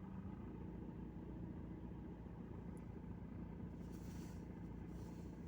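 Lada Vesta engine running steadily under load, in reverse gear against the handbrake. This is the condition that brings on a rattle, which the owner traced to the air filter knocking in its hardened rubber mount.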